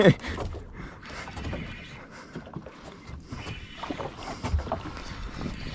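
Open-water ambience aboard a small drifting boat: steady wind and water noise, with a few faint knocks.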